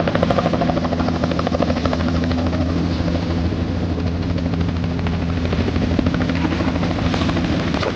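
Helicopter running close by, its rotor and engine making a steady low hum under a fast, even chop of the blades.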